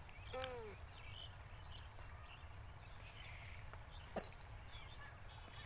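Rural outdoor ambience: scattered small bird chirps over a steady high-pitched whine and a low rumble. A short, arching call comes about half a second in, and a single sharp knock about four seconds in.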